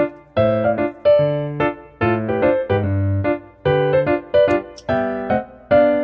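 Light background music led by a keyboard, playing short, detached notes in a steady, bouncy rhythm over a moving bass line.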